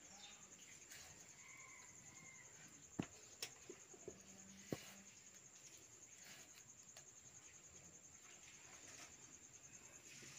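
Near silence with a faint steady high-pitched tone, broken by a few sharp clicks about three to five seconds in from a knife cutting a tomato held in the hand.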